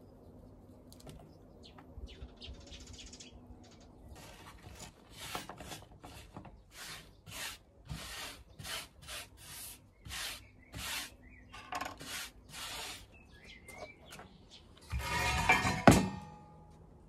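Fresh green beans handled and trimmed by hand: a run of short, crisp snaps and rustles, about one to two a second. Near the end a metal bowl is dragged across the tabletop with a scrape and a brief ring, ending in a sharp clank.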